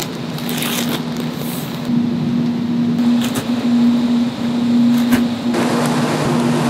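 Steady hum of factory machinery, with rustling and crinkling of heavy paper sacks of thermoplastic rubber being handled and emptied into a mixer. The rustling is loudest from about half a second to two seconds in, and again from about five and a half seconds on.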